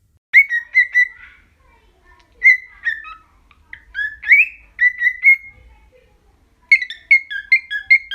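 A pet bird whistling in groups of short chirped notes, mostly on one pitch, with a couple of rising notes midway and a quick run of notes near the end.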